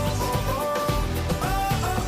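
Background pop-rock song with vocals and guitar over a steady beat.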